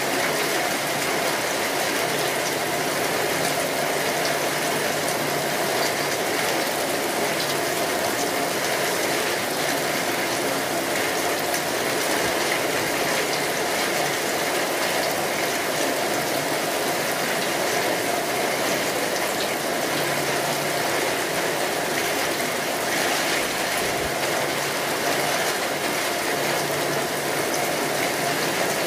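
Steady rain falling, an even, unbroken hiss of many drops with no thunder or breaks.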